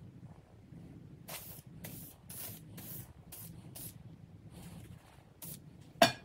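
Aerosol can of weld-through primer spraying onto a steel patch panel in about eight short hissing bursts. Near the end, a sharp knock as the can is set down on the wooden bench.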